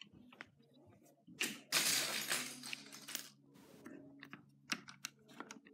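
Plastic Lego bricks and pieces being handled: scattered small clicks and clinks, with a longer rattling shuffle of pieces for about two seconds near the middle.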